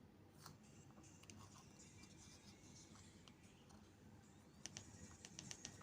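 Near silence: room tone, with a few faint light clicks near the end.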